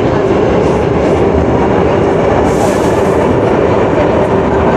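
R62A subway car running on the track, heard from inside: a steady rumble of wheels on rail with a steady humming tone, the weird hum this car makes. A brief hiss a little past halfway through.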